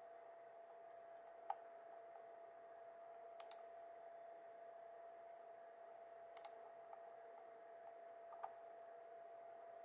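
Computer mouse clicking: four short clicks, some in quick pairs, a couple of seconds apart. A faint steady hum runs underneath.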